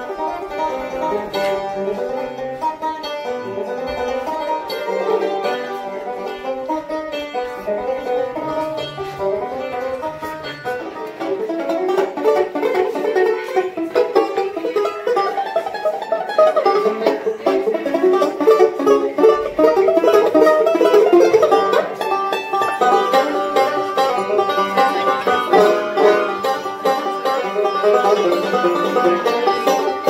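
Resonator banjo being picked: a continuous run of quick plucked notes that grows louder about twelve seconds in.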